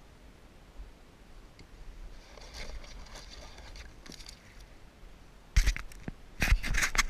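Scraping and knocking close to the microphone, faint at first and then loud from about five and a half seconds in: handling noise of the camera and gear against a plastic kayak.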